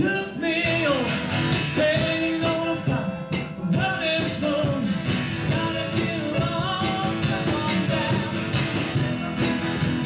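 Live band song: a singer singing over a strummed acoustic guitar, amplified through a small PA.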